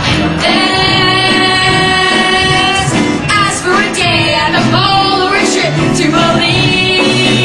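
Live musical-theatre singing with accompaniment: voices sing phrases and hold long notes, one through most of the first half and another near the end.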